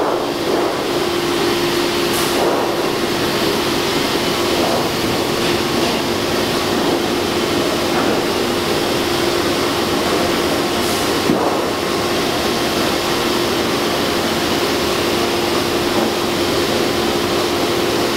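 Steady hum of running shop machinery: an even rushing noise with a constant mid-pitched tone, like a blower or vacuum pump, holding at one level throughout.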